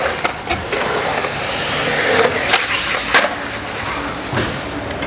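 Skateboard wheels rolling on concrete, with sharp clacks of the board about two and a half and three seconds in.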